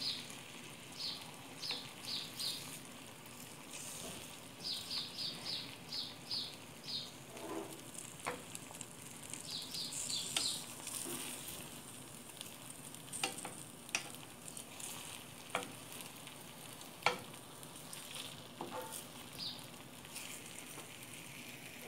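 Beaten eggs frying in an oiled metal pan on medium-low heat give a soft sizzle while a wooden spatula stirs and scrapes them. A few light clicks of the spatula against the pan come through the sizzle. In the first half, short runs of quick high ticks come and go.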